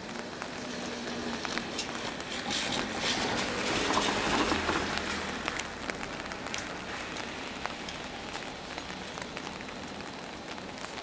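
Heavy rain falling, with a steady hiss and many small drops ticking close by. About three seconds in, a louder swell of noise with a low hum rises and fades over a few seconds.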